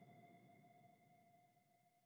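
Near silence: a faint steady whine and hiss that fade out within the first second.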